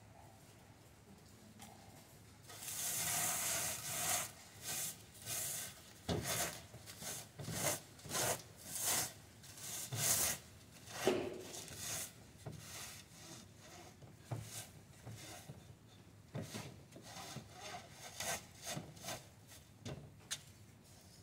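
Gloved hand rubbing dried mad dog skullcap seed heads back and forth against a wire mesh screen in a wooden frame, breaking open the seed pods. A long scrub comes about two seconds in, then quick repeated rasping strokes that grow softer in the second half.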